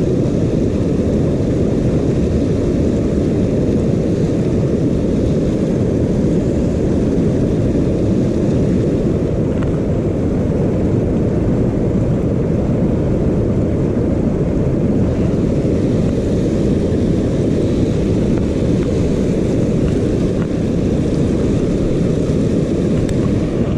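River rapids rushing steadily, heard as a dense low rumble with little hiss.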